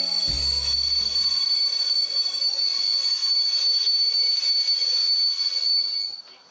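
Train wheels squealing against the rails: one steady high-pitched squeal that cuts off abruptly about six seconds in.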